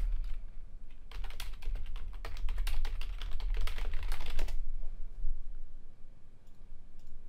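Rapid typing on a computer keyboard: a quick run of key clicks for about three and a half seconds, then stopping, over a steady low hum.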